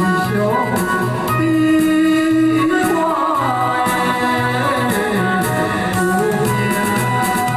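A man singing a Taiwanese ballad live over an electronic keyboard backing track with an organ-like sound and a steady, repeating bass line.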